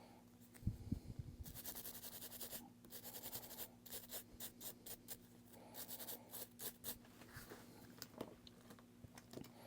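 Faint scratching and scraping of a small brush or tool working over a resin watch case, in irregular spells with light clicks.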